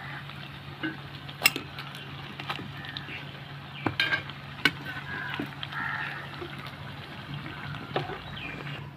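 Jackfruit pieces sizzling as they deep-fry in hot oil in a steel kadhai, with a few sharp clinks of metal tongs against the pan as pieces are lifted out.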